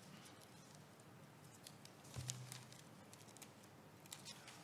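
Near silence: room tone with a few faint clicks and rustles, and a soft thump about two seconds in.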